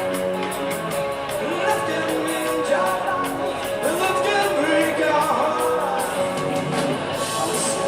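Rock band playing with a singing voice over a steady drum beat.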